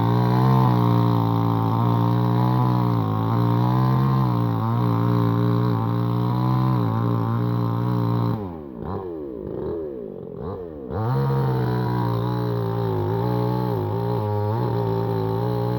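An engine running with a steady droning hum. About eight and a half seconds in it drops off briefly with its pitch sweeping up and down, then picks up again near eleven seconds.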